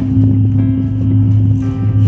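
Large Korean bronze temple bell (beomjong) ringing on after a strike. Its deep hum is steady and swells and fades in slow pulses.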